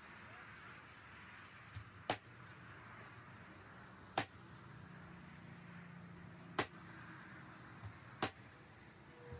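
Nail gun driving nails into a wall panel: four sharp shots, roughly two seconds apart.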